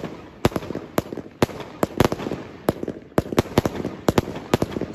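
Aerial fireworks going off in quick succession: sharp bangs about three or four a second as shots launch and burst, with crackling between them.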